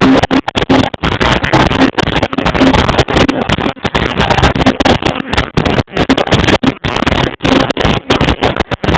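Live reggae band music heard as a loud, distorted rumble through an overloaded phone microphone. The sound keeps cutting out for split seconds, and little of the tune comes through.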